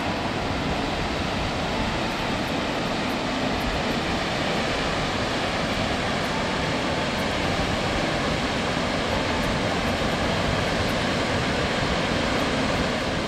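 Loud, steady rushing noise with no clear pitch, unchanging throughout.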